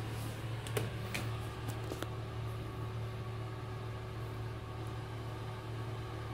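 Steady low hum of a small motor, with a few faint clicks in the first two seconds.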